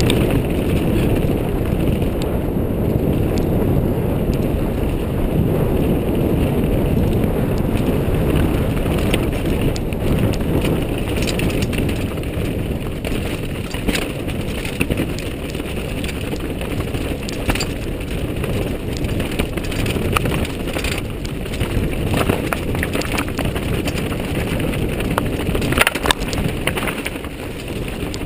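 Downhill mountain bike rattling and clattering over loose rocks, with wind rushing over the helmet camera's microphone. Sharp knocks from the bike hitting rocks come thicker from about a third of the way in, the loudest one near the end.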